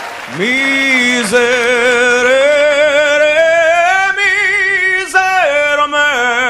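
A man singing long held notes with a wide vibrato. The voice comes in about half a second in, holds one long note, climbs higher about four seconds in, then sings a few shorter notes near the end.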